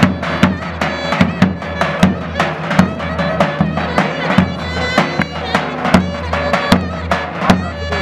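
Davul and zurna playing live: a reedy pipe melody held over the steady beat of the big double-headed bass drum, with strokes about twice a second.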